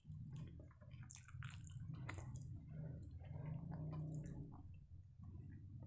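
Wet chewing and lip-smacking of someone eating a mouthful of saucy Maggi noodles, a run of small squishy clicks.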